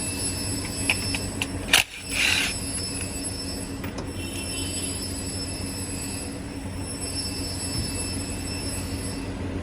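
2013 Hyundai Sonata engine idling steadily, running with a misfire. A single sharp clack and a brief rush of noise come about two seconds in.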